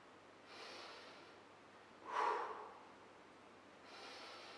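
A man breathing hard while doing one-legged pistol squats: a long drawn inhale, a short forceful exhale about two seconds in, then another inhale near the end.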